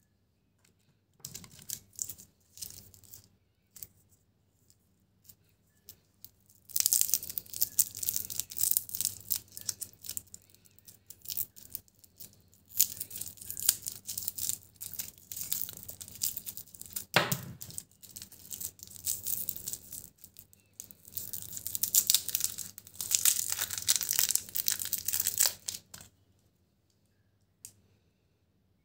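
Shiny plastic wrapper of an Alpenliebe lollipop being twisted and peeled off by hand: long stretches of loud crinkling and tearing, with one sharp crack about halfway through. Faint rustling comes first, and the crinkling stops a couple of seconds before the end.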